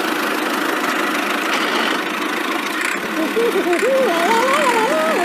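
A cartoon vehicle engine sound effect running steadily. From about three seconds in, a wavering pitched sound that slides up and down comes in over it.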